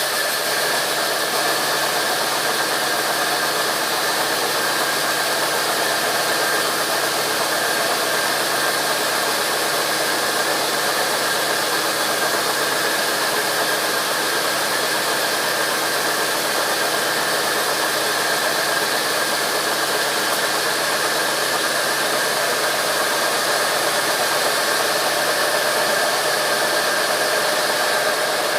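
Sawmill machinery running steadily: a loud, even noise with a steady high whine and no breaks.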